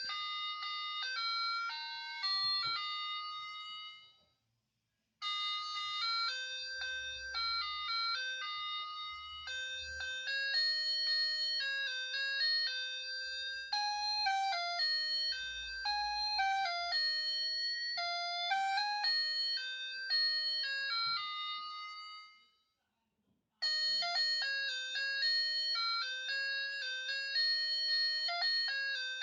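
Electronic sound chip of a 1990 battery-operated toy bike playing simple beeping melodies through its small speaker. The tune stops about four seconds in and again near 23 seconds, each time a new tune starting after a second or so of silence.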